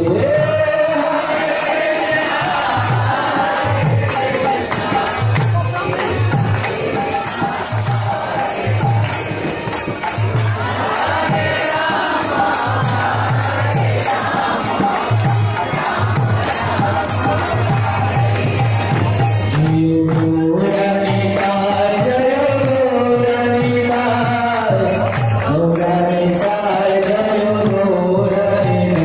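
Hindu devotional music with voices chanting over a steady drum beat and percussion. About two-thirds of the way through, the singing moves into long held notes.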